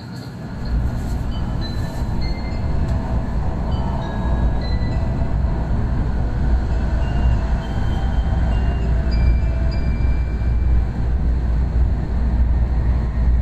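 Kyushu Shinkansen onboard chime: a short melody of separate high notes playing over the steady low rumble of the train running at speed, heard inside the passenger car. It is the chime that signals an onboard announcement is coming.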